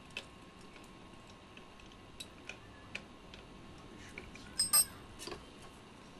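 Scattered light metallic clicks and taps of hand tools working the damper rod bolt at the bottom of an inverted Showa fork leg, with a louder ringing double clink of metal about four and a half seconds in.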